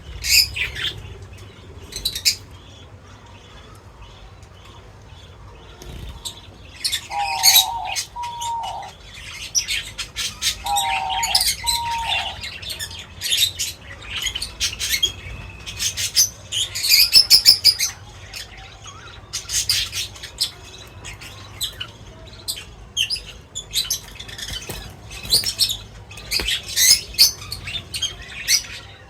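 Small birds chirping and tweeting: many short, sharp, high chirps in busy clusters, with a quieter stretch a few seconds in. Twice, a lower two-note call sounds among the chirps.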